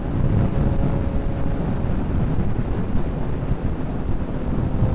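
Motorcycle running steadily at highway speed, its engine drone mixed with wind noise buffeting the microphone.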